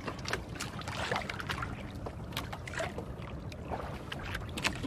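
Water splashing and slapping around a small fishing boat's hull, with scattered short knocks and rustles over a steady low rumble.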